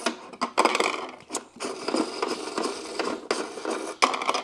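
Parts of an aquarium overflow being popped off and pulled apart by hand: irregular clicks, knocks and rustling.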